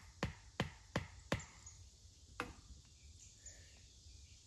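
Ratchet strap on a ladder tree stand being cranked tight around the trunk: quick, even clicks about 0.4 s apart, four of them, then one last click after a short pause.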